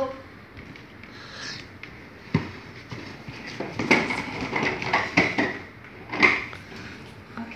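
Plastic baby push-walker toy knocking and rattling as it is pushed and turned on a hardwood floor: one sharp knock about two seconds in, then a run of clattering knocks from about three and a half to six and a half seconds.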